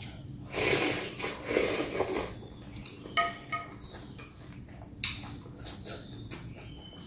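Close-up eating sounds of rice-vermicelli noodle soup: noisy slurps and mouthfuls for the first couple of seconds, then a few light clinks of a spoon and chopsticks against a glass bowl.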